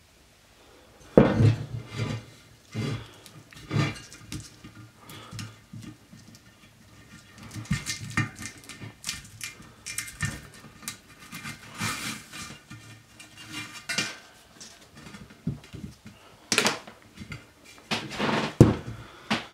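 Metal clanks, clinks and rattles of a bare steel spoked moped wheel rim being handled and turned on a wooden bench, in irregular knocks with the loudest about a second in and twice near the end.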